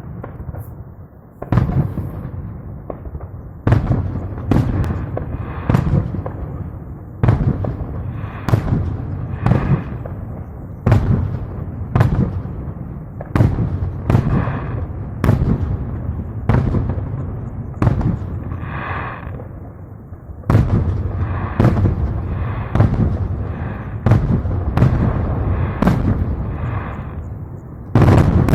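Fireworks display: aerial shells bursting in a rapid series of loud bangs, about one a second, each followed by a rumbling, echoing tail, with a short lull about two-thirds of the way through.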